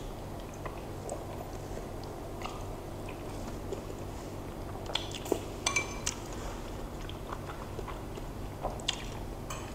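Quiet eating of meatball soup: light clinks of metal spoons against ceramic bowls, a cluster around the middle and a few near the end, with soft chewing over a low steady hum.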